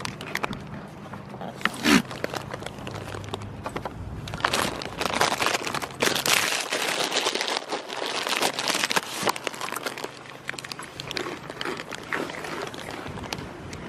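Goats chewing close up, a dense run of crisp crunching and crackling, as of animal crackers being chewed.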